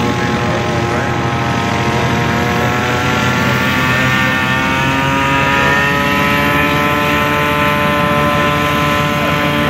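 Ultralight aircraft engine and propeller running steadily as the plane rolls across the grass, the pitch rising slowly a few seconds in.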